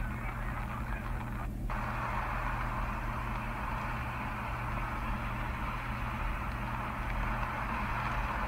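Heavy rain falling, a steady hiss with a low hum beneath it; the hiss drops out briefly about a second and a half in.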